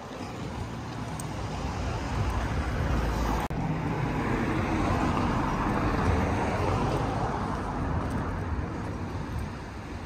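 Road traffic noise, with a steady rush of passing vehicles that swells around the middle. The sound breaks off sharply for an instant about three and a half seconds in, at an edit.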